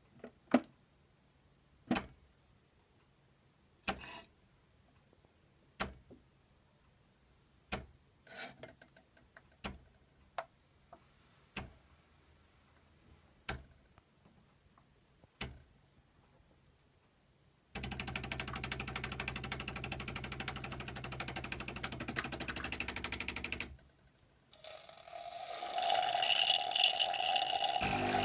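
Bosch Tassimo pod machine brewing: about eight sharp clicks roughly two seconds apart, then its pump buzzes steadily for about six seconds. After a brief pause it starts again with a louder hissing whir as hot water is forced through the hot chocolate pod.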